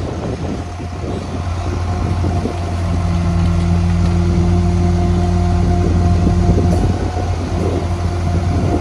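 Rear-loading garbage truck running with its hydraulic compactor working on a hopper load of tree branches. About two and a half seconds in the engine rises in revs and a steady hydraulic whine comes in, dropping away a little before the end. Branches crackle at the start and again near the end.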